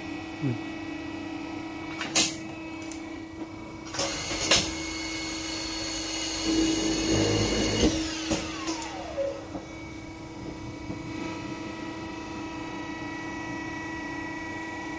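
Rotary tube-flaring machine working through a flaring cycle on copper tube over a steady motor hum. Two sharp clunks come about two seconds and four and a half seconds in. The flaring head then runs louder for a few seconds and winds down with a falling whine about eight seconds in.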